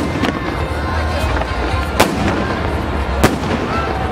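Fireworks salute bursts: three sharp bangs, one right at the start, one about two seconds in and one a little over three seconds in.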